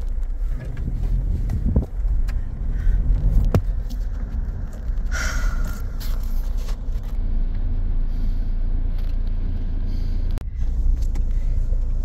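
Low, steady engine and tyre rumble of a 4WD driving slowly on a dirt bush track, heard from inside the cabin, with a few sharp knocks from bumps and a brief higher noise about five seconds in.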